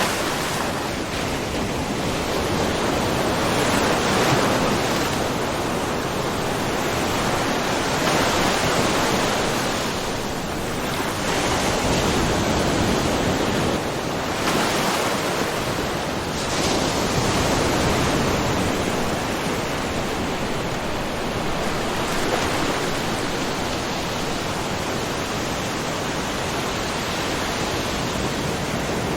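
Small ocean waves lightly splashing and washing over a rocky, mussel-covered shore, a continuous surf hiss that swells and eases every few seconds.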